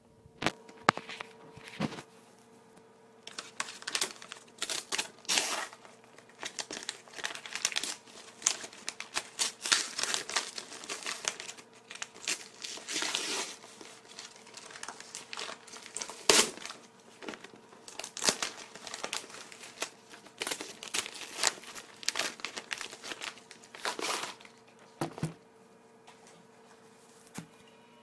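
Packaging crinkling and rustling as it is handled close to the microphone: a long run of irregular sharp crackles with short pauses, over a faint steady hum.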